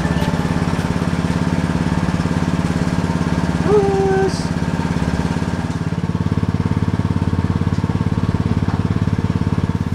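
Domestic cat purring: a steady, fast, even rumble, with a short high call breaking in about four seconds in.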